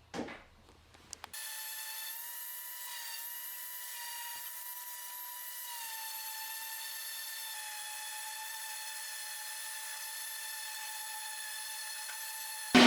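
Electric power sander running steadily on wood, a steady motor whine that starts about a second in and holds an even pitch.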